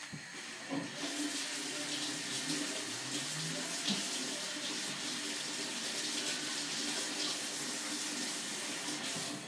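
Kitchen tap running into the sink from about a second in, shut off abruptly just before the end.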